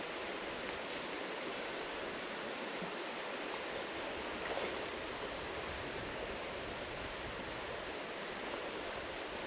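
Small creek running over a shallow rocky riffle, a steady even rush of water, with a brief soft rustle about four and a half seconds in.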